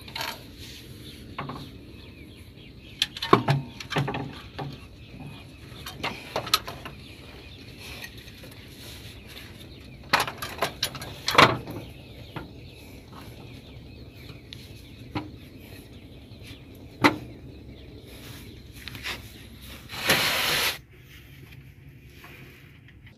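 Scattered metallic clicks, clinks and knocks of hand tools and bolts as a diesel fuel injection pump is fitted and bolted back onto the engine, with one louder, longer scrape of under a second about twenty seconds in.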